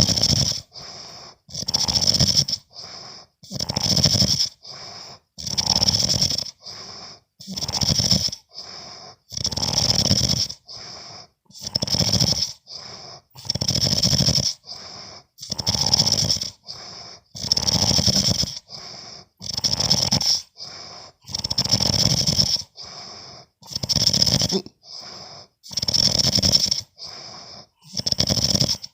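A sleeping man snoring loudly and regularly: a long, rasping snore about every two seconds, with a shorter, softer rasp between each one.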